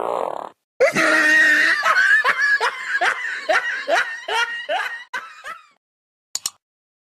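The tail of a fart sound, then a burst of hearty laughter: a run of 'ha-ha' bursts that slows and fades over about five seconds. Near the end comes a brief, bright click.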